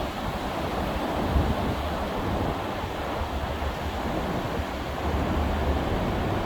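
Sea surf washing steadily, with wind rumbling on the microphone.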